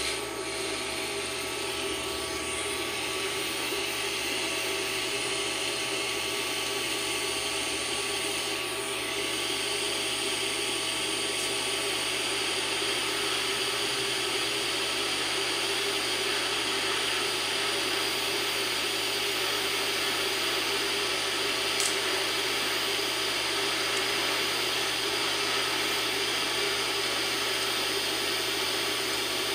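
TIG welding arc from a Forney Easy Weld 100 ST in lift-arc mode, about 60 amps DC electrode negative on 10-gauge steel under 100% argon: a steady hiss that grows a little stronger about nine seconds in.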